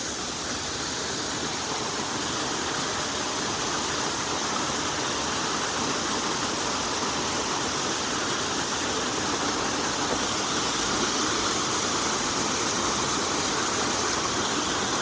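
Waterfall: a steady rush of falling water that grows slightly louder throughout.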